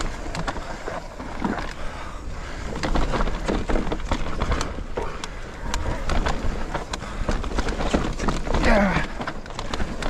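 Electric mountain bike riding down a rough forest trail: tyres crunching over dirt and roots, with the chain, frame and suspension rattling in frequent clicks and knocks over a steady wind rumble on the action camera's microphone. A brief falling tone comes near the end.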